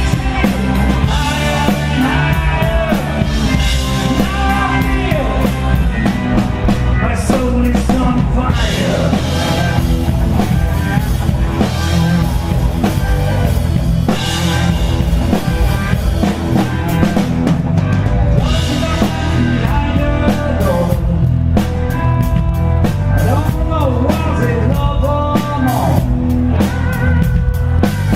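A blues-rock band playing live, with drum kit and guitar under a sung lead vocal.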